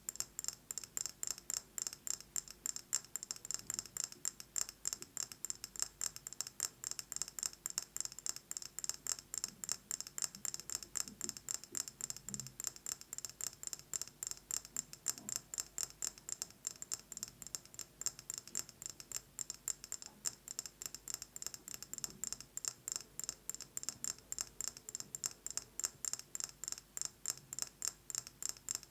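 Fingernails tapping fast on a candle jar, a continuous run of sharp, crisp taps several per second with no pauses.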